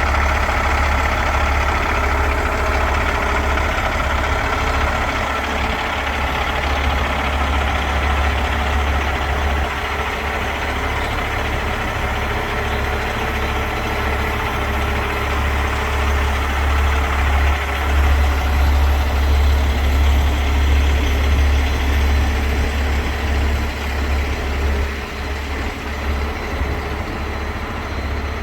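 Heavy diesel engine running steadily at a near-idle, a deep even drone that swells a little about two-thirds of the way through.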